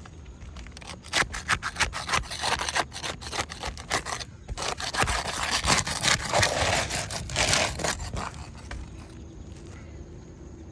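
Repeated scraping and rubbing on asphalt roof shingles in rapid, uneven strokes, starting about a second in and dying down after about eight seconds.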